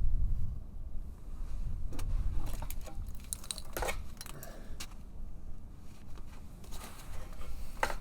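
Irregular metallic clicks and clinks of a ratchet and socket being worked on a rear brake caliper bracket bolt.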